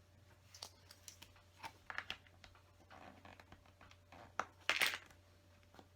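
Plastic LEGO bricks clicking and rattling as they are handled: scattered light clicks, with a short louder rattle near the end.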